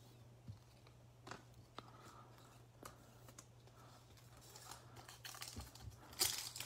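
Trading cards being handled on a table, with faint scattered clicks and taps; near the end a foil card pack wrapper crinkles loudly as it is gripped to be torn open.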